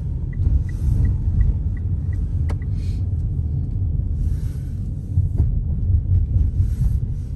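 Car cabin road and engine rumble while driving. A turn signal ticks about three times a second for the first three seconds, then stops.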